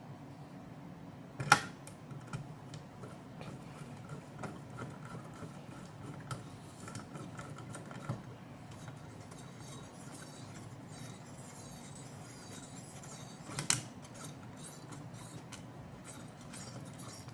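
Small metal clicks and light rattling from screws and a screwdriver being handled while fastening the cooler onto a GTX 1050 Ti graphics card, with two sharper clicks, one about a second and a half in and one about three-quarters of the way through.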